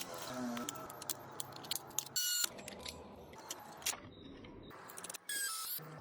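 Small plastic clicks and rattles over a faint steady hum, with two short high-pitched beeps about three seconds apart.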